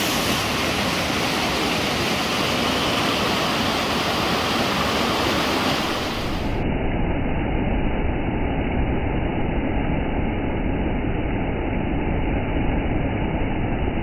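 Steady rushing of a cascading mountain stream and its small waterfalls pouring over rocks. The sound turns duller about six seconds in, as the high end drops away.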